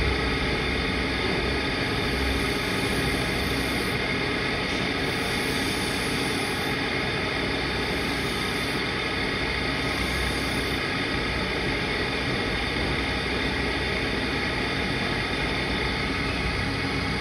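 Motor-driven sharpening wheel running steadily, with a Damascus steel knife edge held against it about midway through.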